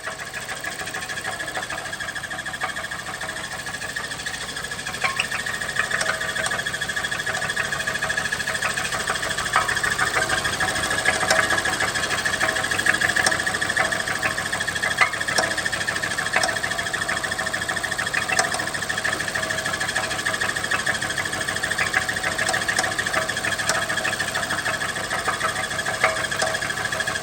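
BMW 750's N63 twin-turbo V8 engine running, with a steady high-pitched whine over a fast mechanical clatter and scattered clicks: the weird sound the owner is trying to find.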